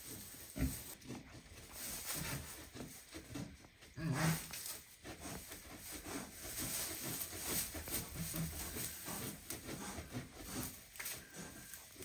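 Mini pigs grunting in short, irregular bursts, loudest about four seconds in.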